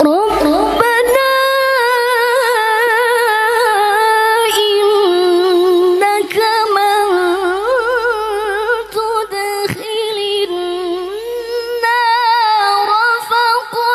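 A woman reciting the Quran in the melodic tilawah style into a microphone, one solo voice holding long notes with wavering, ornamented pitch turns. The recitation begins right at the start, with short breaks between phrases.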